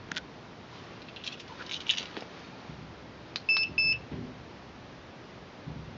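Wireless home alarm unit giving two short, high beeps in quick succession about three and a half seconds in, preceded by a few light clicks and taps.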